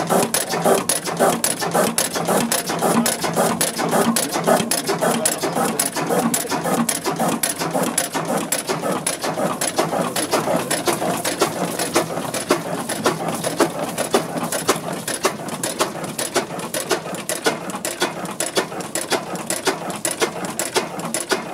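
MODAG stationary gas engine running steadily, its mechanism giving a fast, even clatter of clicks.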